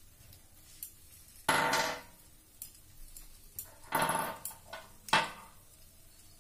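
Steam spurting from a pressure cooker's open vent pipe after the whistle weight has been taken off, as the cooker lets off pressure. It comes as three short hissing spurts: a loud one about a second and a half in, another at about four seconds and a brief one just after five.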